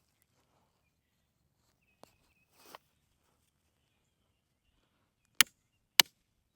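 Three sharp knocks about half a second apart near the end, after a faint click and a brief rustle about two seconds in.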